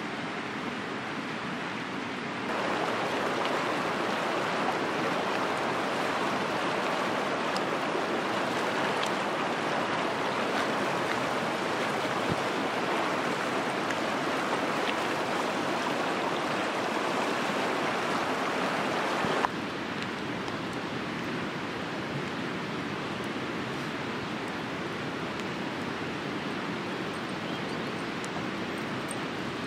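Shallow mountain river rushing steadily over rocks. The rush grows louder and closer about two and a half seconds in, then drops suddenly to a softer steady rush about two-thirds of the way through.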